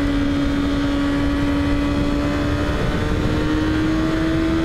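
Kawasaki ZX6R's inline-four engine running hard at high revs in a low gear, its pitch holding steady, dipping slightly about three seconds in, then climbing slowly, with wind rushing past.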